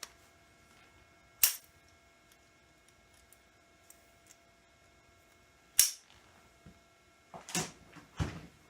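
Hand tools clicking against a Ford 289 short block during a final check: two sharp single metal clicks a few seconds apart, then a short run of lighter clicks and clatter near the end.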